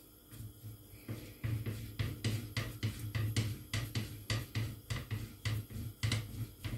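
Thin wooden rolling pin rolling out lavash dough on a countertop in quick back-and-forth strokes: a low rumble and a knock about three times a second, starting about a second in.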